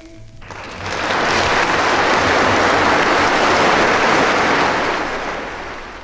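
Audience applause between songs, starting suddenly and holding steady before fading out.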